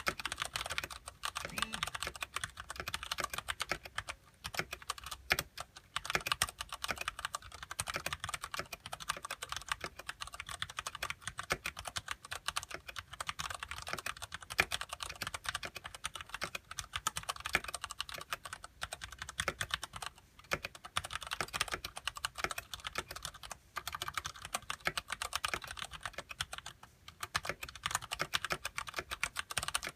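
Steady fast typing on a Ducky Shine Mini mechanical keyboard with Cherry MX Brown switches and ABS keycaps: a dense run of keystroke clicks and clacks, broken by a few short pauses.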